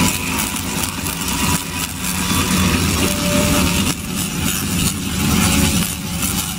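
Tesla coils discharging high-voltage arcs: a loud, steady electric buzz with crackling.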